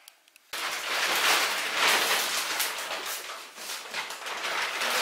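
Dense rustling and crackling that starts suddenly about half a second in: a mattress being handled and laid onto a bed.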